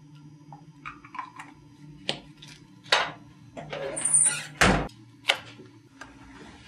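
Pill bottle and medicine cabinet being handled: a string of small clicks and knocks, a brief high squeak, then a loud thud about two-thirds of the way through as the cabinet door shuts, followed by one more click. A low steady hum runs underneath.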